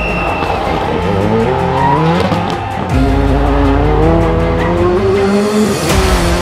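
Rally car engines revving hard through corners, the pitch climbing and dropping with each gear change, switching abruptly to another car about three seconds in. Music plays underneath.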